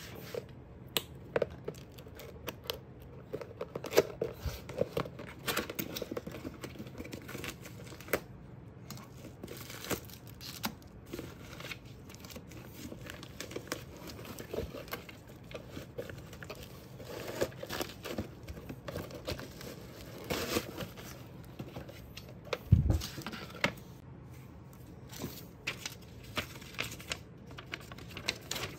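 A cardboard box being opened and unpacked by hand: flaps scraping and tearing, paper rustling, and items knocking as they are taken out and set down. A single dull thump late on is the loudest sound, and near the end a folded paper instruction leaflet crinkles as it is opened out.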